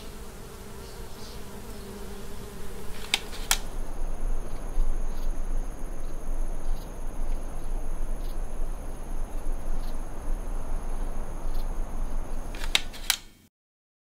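Outdoor ambience with insects buzzing: a low buzz for the first few seconds, then a steady high insect whine over a hiss. Sharp clicks come about three seconds in and again near the end, and then the sound cuts out.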